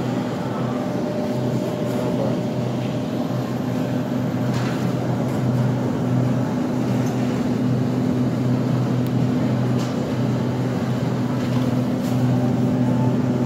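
Steady low mechanical hum from a supermarket refrigerated display case's cooling fans and compressor, with a few faint ticks.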